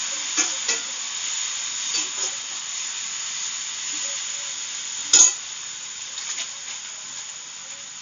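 Chopped vegetables sizzling as they are stir-fried in a metal kadai, growing fainter toward the end. A metal spatula scrapes and knocks against the pan several times, with the loudest knock a little past halfway.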